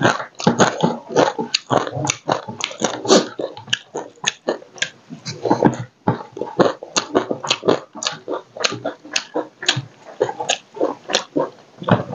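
Close-miked mukbang eating sounds: wet chewing and lip smacking while rice and crab curry are mixed and eaten by hand, a rapid string of clicks and smacks.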